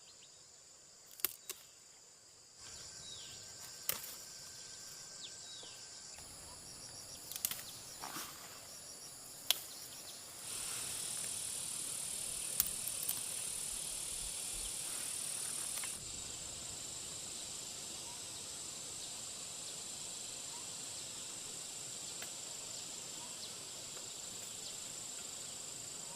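A steady, high-pitched chorus of forest insects such as crickets and cicadas, whose mix jumps in level a few times. Several short, sharp snaps or clicks sound over it in the first half, the loudest about nine seconds in.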